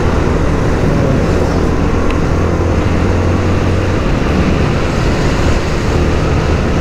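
Yamaha Sniper 155 single-cylinder motorcycle engine running steadily at riding speed, with wind rushing over the helmet-mounted microphone.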